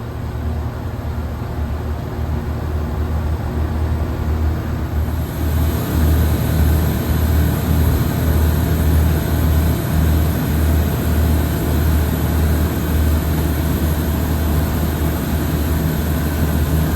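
Daikin rooftop package unit running at full cooling capacity: a steady low hum with a pulsing rumble, joined about five seconds in by a louder rushing noise of air.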